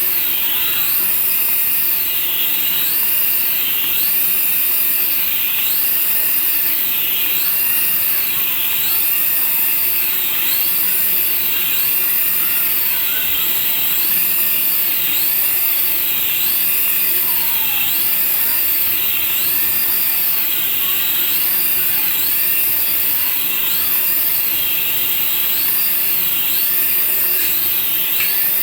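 Battery-powered toy running with a steady high-pitched whir, over which a high tone rises and falls about every second and a quarter.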